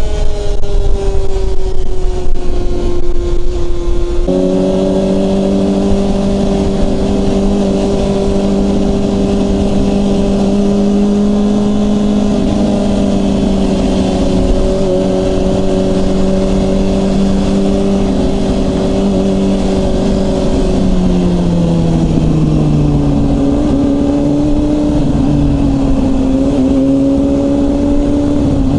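Supersport motorcycle engine droning at freeway speed, with heavy wind buffeting on the microphone and the engine note easing down for the first few seconds. About four seconds in the buffeting stops abruptly and the engine holds a steady note, then its pitch drops again about two-thirds through as the bike slows.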